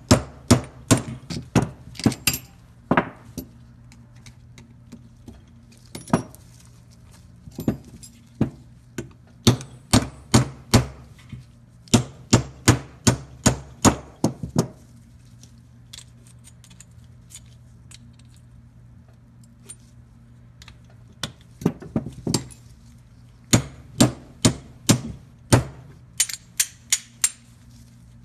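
Sharp metal-on-metal clicks and taps, a few a second in three bursts with pauses between, as pliers grip and bend back the crimped steel lip of a starter motor's drive-clutch collar.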